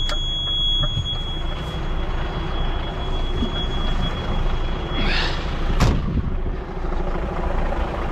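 Heavy truck diesel engine idling steadily, with a continuous high tone for the first five seconds. About six seconds in there is a short hiss and a sharp knock.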